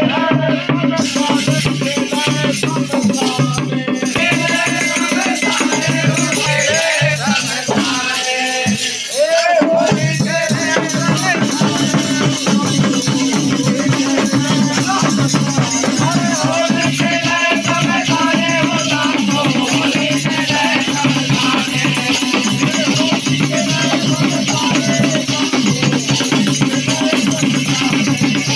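Holi folk singing: voices singing over a dholak drum beat and a constant jingling of hand-shaken rattles.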